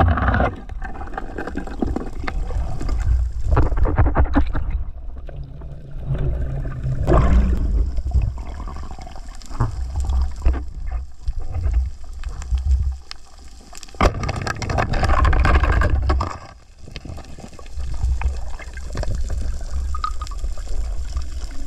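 Water rushing and gurgling around an underwater camera as a spearfisher swims, in uneven swells of noise over a low rumble, with one sharp click about two-thirds of the way through.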